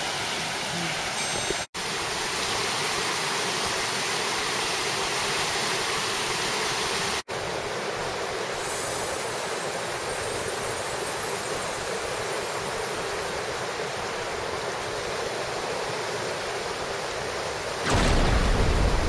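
Shkumbin river rushing steadily over stones in shallow rapids. The sound breaks off for an instant twice, and near the end it grows louder with a deep rumble.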